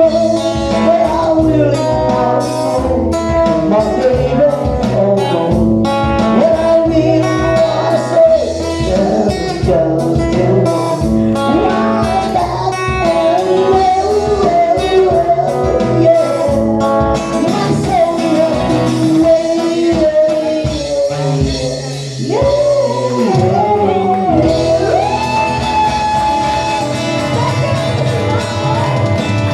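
Live band playing a song: a singer over guitar, bass and drums, with a dip about two-thirds of the way through before the music picks up again.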